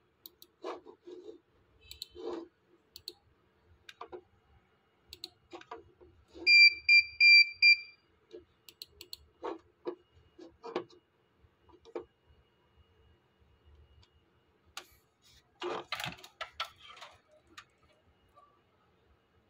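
Computer mouse clicking as the settings menus of a Dahua NVR2216-I2 network video recorder are worked through. About six and a half seconds in, a quick run of short, loud high beeps from the recorder's buzzer, the loudest sound here. A cluster of clicks and knocks comes around the sixteen-second mark.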